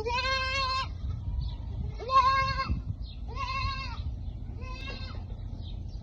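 Baby goat bleating four times, each bleat just under a second long with a gap of about a second between them.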